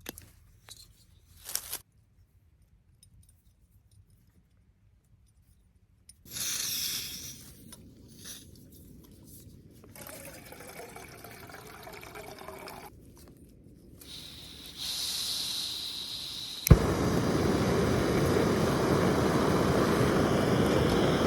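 Camp cooking: a hiss, then a sharp click about two-thirds of the way through followed by a loud, steady rushing roar, as of a backpacking gas stove being lit and burning to boil water for dehydrated meals.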